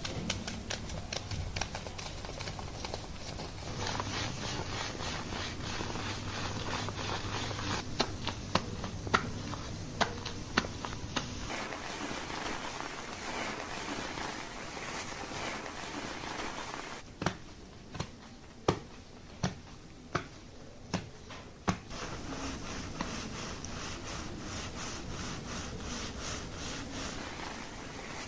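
Hands scrubbing and scratching through a shampooed scalp during a salon hair wash. Twice the rubbing gives way to a short run of sharp taps, the second a steady series of about six.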